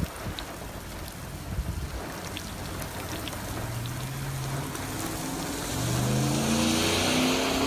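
Vehicle engine accelerating, its pitch climbing from about four seconds in and then holding, with rain and wet-road hiss growing louder near the end.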